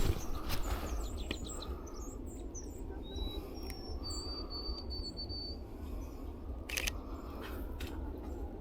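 Small songbirds calling: a flurry of short high chirps in the first couple of seconds, then a few thin, steady whistled notes around three to five seconds in. A steady low rumble runs underneath, and a single sharp click comes about seven seconds in.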